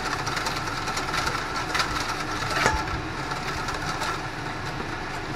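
Wire whisk beating in a stainless steel mixing bowl, a steady clatter of metal on metal. Olive oil is being drizzled in slowly to emulsify the Caesar dressing.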